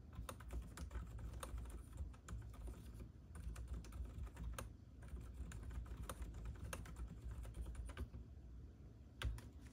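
Typing on a Hansung GK787SE OfficeMaster mechanical keyboard with lubricated, low-noise Hawk non-click switches: an irregular stream of key strokes, with one louder stroke near the end.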